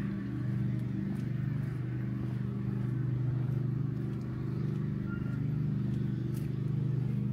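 A steady low mechanical hum, like machinery or an engine running, with light irregular footstep clicks over it.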